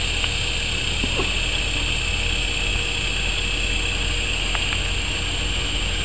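Steady outdoor background noise: a constant low rumble under an even high-pitched hiss, with no distinct event apart from a couple of faint ticks.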